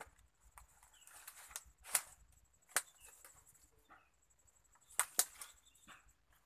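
A machete (mandau) chopping through undergrowth: sharp strikes about two seconds in, again just under a second later, and a quick pair about five seconds in, with leaves and stems rustling between them.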